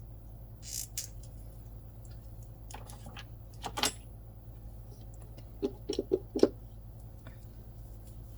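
Light clicks and taps of small nail-art tools and a press-on nail being handled on a tabletop, with a quick run of four taps about six seconds in.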